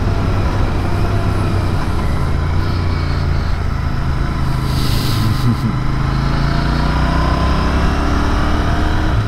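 Royal Enfield Continental GT 650's parallel-twin engine running under way at road speed, with wind noise. The engine note drops about two seconds in, climbs again, and rises slowly near the end. There is a brief hiss about five seconds in.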